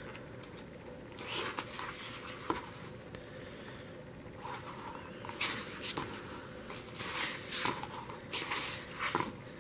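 Pages of a photobook being turned and smoothed down by hand: a series of soft papery swishes and rustles, several over a few seconds.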